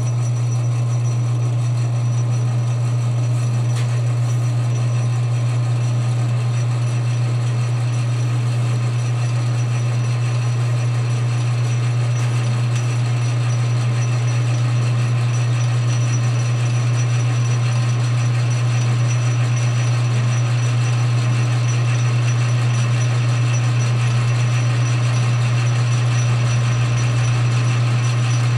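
Metal lathe running steadily under power feed, the motor and gear train giving a constant hum while the chuck spins a workpiece during a truing cut.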